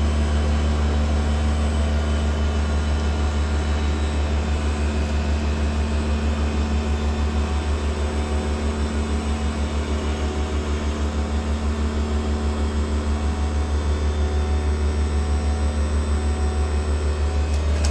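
Heat pump outdoor unit running: a steady low compressor hum with a fast, even pulsing, and no change from start to end.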